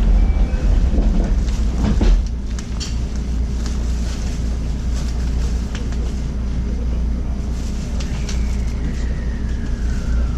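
Running noise of a JR Special Rapid electric train heard from inside the car: a steady low rumble of wheels on rail, with scattered clicks and knocks over the track. Late on, a thin whine slides down in pitch.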